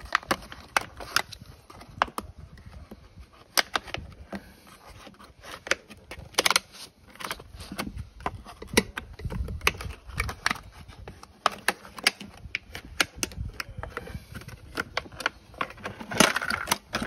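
Cut plastic water-bottle rim protectors crinkling and a steel tire spoon clicking against an alloy motorcycle rim as the tire is levered off. The sound is a run of irregular sharp clicks and crackles.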